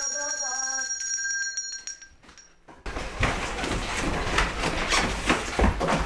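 A hand bell ringing with several high, lingering tones while a woman's voice calls out over it; the ringing fades away about two seconds in. Then come loud clatter, dishes clinking and lively talk.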